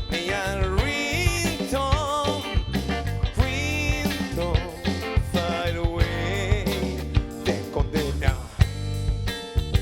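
A band playing an up-tempo rock song, with drums, a strong bass and a wavering lead melody line.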